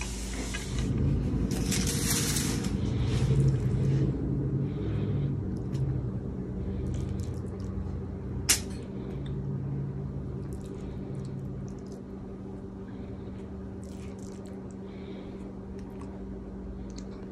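A black plastic slotted spatula scoops seasoned ground beef out of a stainless steel pan and spreads it on a tortilla, with scraping in the first few seconds and one sharp tap about eight seconds in. A steady low hum runs underneath.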